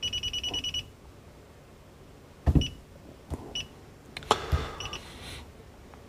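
DSC PowerSeries NEO HS2TCHP touchscreen keypad beeping as its screen is tapped: a quick run of about eight short high beeps at the start, then single short beeps about a second apart. Soft thuds of a fingertip on the screen come with some of the taps.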